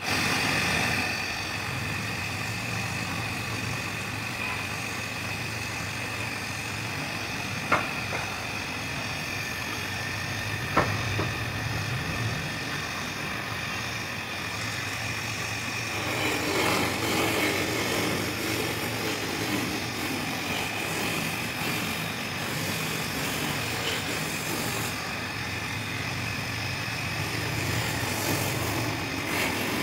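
Wood lathe motor running steadily with a constant high whine, turning a beaded wooden spindle. Two sharp clicks come about eight and eleven seconds in, and a louder rubbing noise joins about halfway through as something is held against the spinning wood to colour it.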